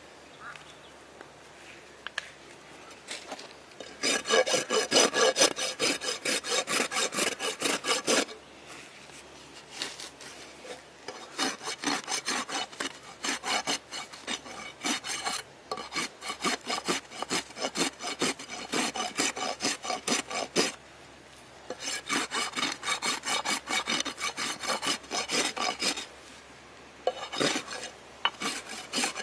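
Hoof rasp scraped in rapid strokes across a horse's hoof wall during a barefoot trim, in several runs of strokes with short pauses between them.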